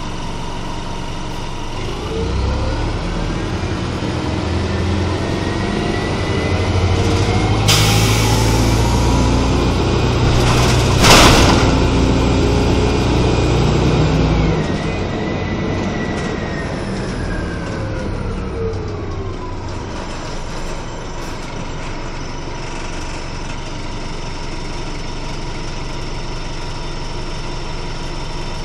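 A 1996 RTS transit bus heard from inside the cabin as it pulls away: a whine rises in pitch over the engine for several seconds, then falls as the bus slows and the engine settles back to idle. A sudden hiss comes in about eight seconds in, and a brief sharp burst about eleven seconds in is the loudest moment.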